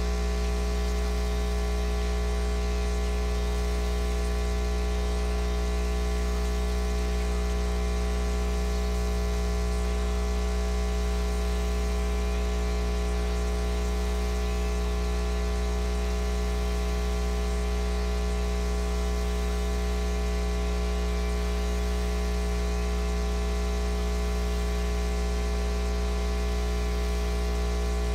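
Steady electrical mains hum with a layer of hiss and static, unchanging throughout: a strong deep hum with fainter higher buzzing tones above it.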